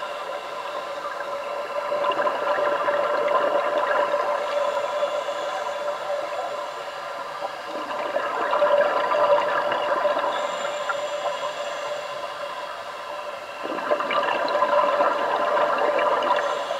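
Scuba diver's exhaled bubbles from the regulator, heard underwater as three louder bubbling surges about six seconds apart, one per breath, over a faint steady hum.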